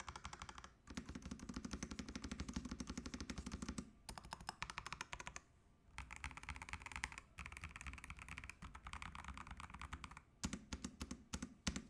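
Fantech MaxFit81 mechanical keyboard with PBT keycaps being typed on fast, rapid keystroke clicks in bursts separated by a few short pauses.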